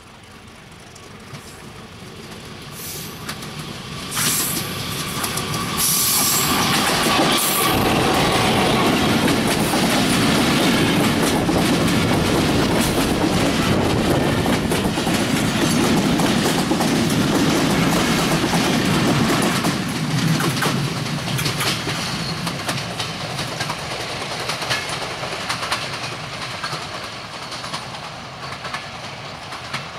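Broad-gauge diesel locomotive approaching and passing close by, growing louder over the first six seconds. The passenger coaches then rumble past with the wheels clicking over the rail joints, and the sound fades over the last ten seconds as the train recedes.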